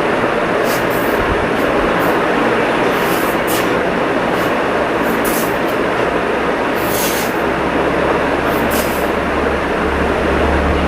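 A steady, loud rushing noise, with short hissy sounds here and there.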